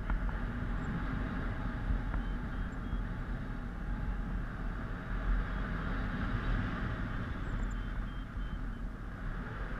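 Steady wind rushing over the microphone of a helmet-mounted action camera in paraglider flight, a constant low roar.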